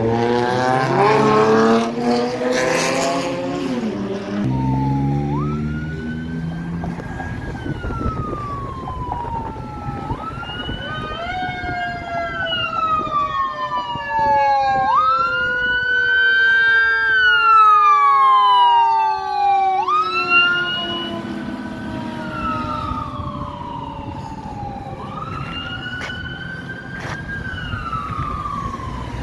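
Fire engine siren wailing, each cycle rising quickly and then falling slowly. Several wails overlap, loudest about halfway through, over a lower tone that slides slowly down. At the start a passing vehicle's engine accelerates loudly.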